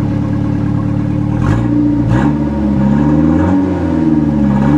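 Mercury Topaz's four-cylinder engine running, heard from inside the cabin, with its catalytic converter cut out. Two short clicks come about a second and a half in, and then the engine speed rises and falls several times.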